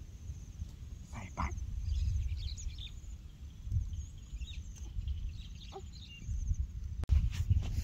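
Uneven low rumble of wind on the microphone, with faint, high, repeated bird chirps and a few brief knocks or rustles.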